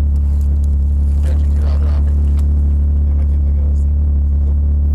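Jeep engine running steadily, heard from on board as a deep, even drone that neither rises nor falls.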